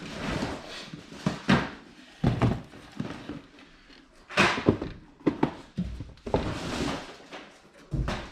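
Boxed toys and cardboard game boxes being handled: a string of irregular thumps and knocks as boxes are pulled out, dropped and stacked, with cardboard rustling between them.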